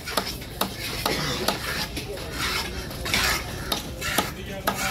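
Knife chopping and scraping on a wooden chopping block as a large fish is cut up: sharp knocks about twice a second, with scraping strokes in between.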